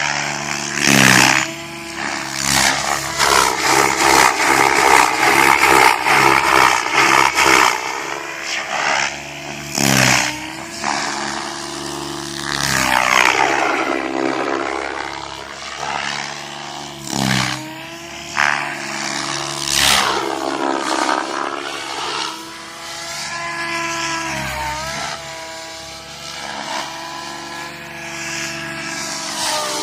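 Electric Goblin 700 RC helicopter, with a brushless motor, flying 3D manoeuvres. Its rotor and motor whine rises and falls in pitch as the head speed and blade load change and as it passes, broken by several short loud rushes of noise.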